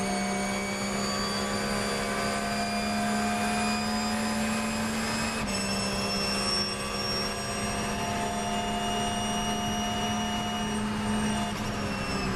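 Porsche 911 GT3 R's flat-six racing engine at full throttle, heard from inside the cockpit, its pitch climbing slowly as the car accelerates, with one upshift about five and a half seconds in. Wind and road noise run underneath.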